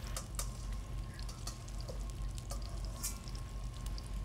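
Light scattered clicks and scrapes of a wire whisk in a stainless steel mixing bowl, over a faint steady hiss and low hum.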